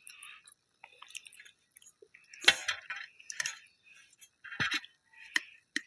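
A person chewing a meal close to the microphone: irregular wet mouth clicks and smacks, with the loudest burst about two and a half seconds in.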